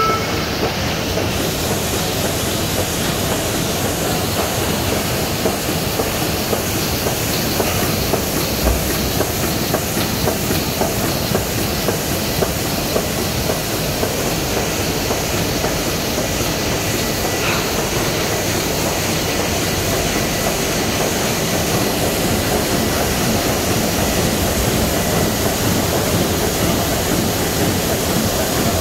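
KBA Rapida 74 sheetfed offset printing press running, a loud, steady mechanical noise with a fine, rapid clatter.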